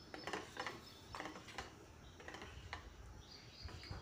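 Metal spoon stirring thick batter in a stainless steel bowl: faint, irregular clinks and scrapes of the spoon against the bowl.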